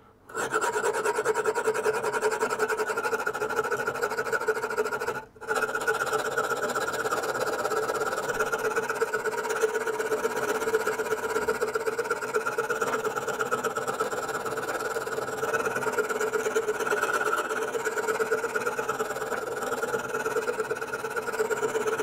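Hand file rasping along the steel spine of a kitchen knife, steady with a short break about five seconds in. The file bites easily, the sign of soft blade steel that comes off in shavings.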